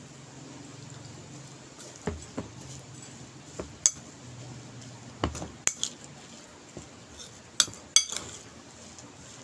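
Metal spoon clinking and scraping against a ceramic bowl while stirring damp rolled oats: sharp clinks come at uneven intervals, the loudest a little before the middle and two close together near the end.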